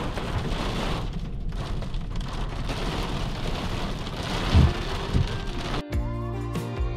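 Heavy rain pelting a van's windshield, heard from inside the cab, with two low thumps a little past the middle. About six seconds in it cuts off sharply and soft music begins.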